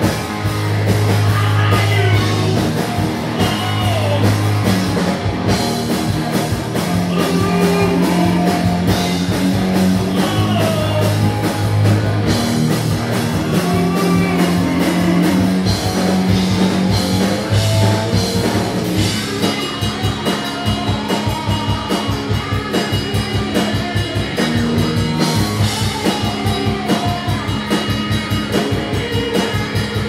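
Rock band playing live: electric guitars, bass and drum kit, with the drumming getting busier about two-thirds of the way in.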